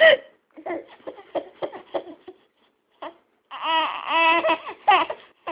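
A woman's sharp hiccup, then a baby boy laughing and babbling: a quick run of short giggles, then longer, higher-pitched vocal calls in the second half.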